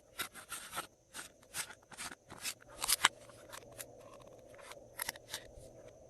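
Glossy slime being squeezed and mixed by hand, giving irregular sharp clicks and pops, loudest about three seconds in.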